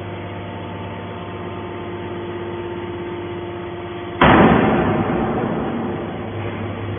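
Hydraulic scrap metal baler's power unit humming steadily. About four seconds in comes a sudden loud crash that fades away over about two seconds.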